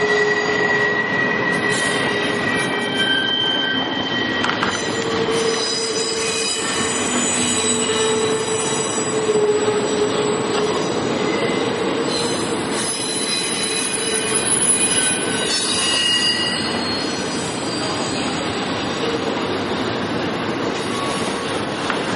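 Double-stack intermodal well cars of a CSX freight train rolling past, a steady rumble of wheels on rail with several high, shifting wheel-squeal tones that come and go.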